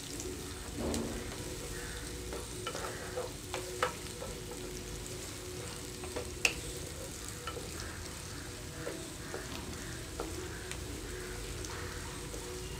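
Chopped onions and green chillies sizzling steadily in oil in a non-stick kadai while they are stirred with a spatula, with a few sharp clicks of the spatula against the pan.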